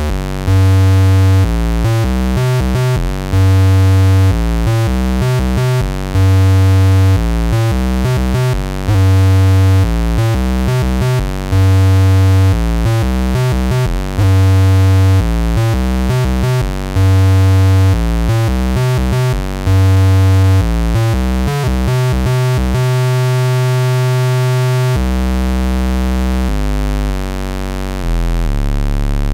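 Moog Minimoog Model D analog synthesizer playing a repeating bass riff through an SVS PB-4000 subwoofer, a loud deep note coming back about every two and a half seconds between quicker notes. Near the end one note is held for a couple of seconds, then lower notes step down.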